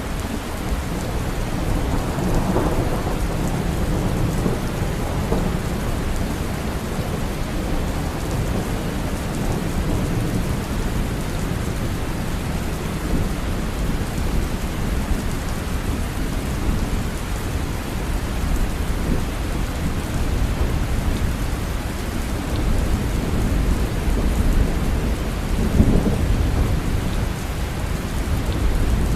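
Steady rain with low rolling thunder, the rumble swelling a little a couple of seconds in and again near the end.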